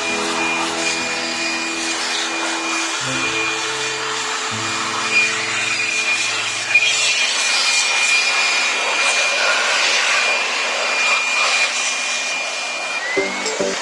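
A small electric motor runs steadily with a thin high whine and a rushing hiss, over background music.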